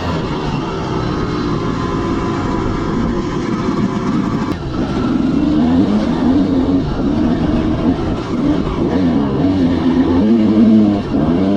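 Dirt bike engine being ridden hard, its pitch climbing and dropping again and again with the throttle and gear changes, most often after about four seconds in.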